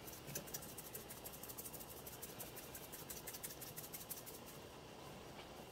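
Dried oregano shaken from a spice jar over a pan of sauce: faint, quick, even shakes that stop about four and a half seconds in.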